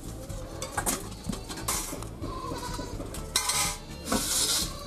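Metal spatula and steel bowl clinking against a wok, with bursts of sizzling as food goes into hot oil, about three times. A goat bleats in the background.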